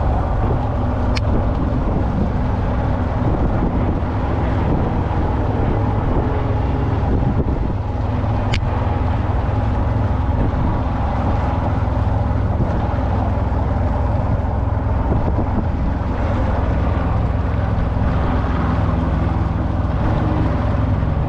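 Boat motor running steadily while the boat is underway, with wind buffeting the microphone. Two short sharp clicks, about a second in and again about eight seconds in.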